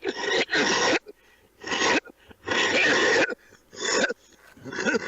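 A man coughing: about six coughs in quick succession, the first two back to back and a longer one in the middle.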